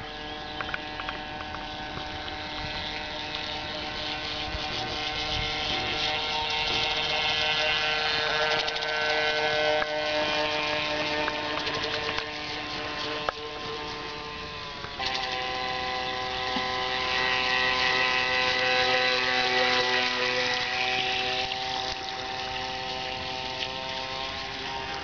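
Ansmann Lugano RC model runabout under way, its Kyosho AP-29-type electric motor and drive shaft giving a steady buzzing whine that swells and fades as the boat passes, then jumps suddenly to a new pitch about halfway through. The owner reports a badly vibrating drive shaft.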